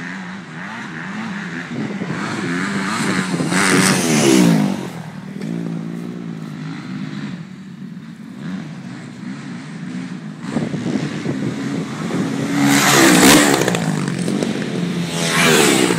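Motocross dirt bike engines revving up and down as riders pass on the track. The bikes are loudest about four seconds in and again from about thirteen seconds in, when a bike passes close.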